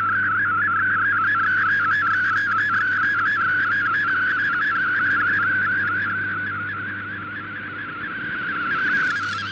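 MFSK32 digital-mode picture transmission received by shortwave radio: a fast, steadily warbling tone over hiss, carrying the data of a colour image. The signal weakens somewhat in the last few seconds.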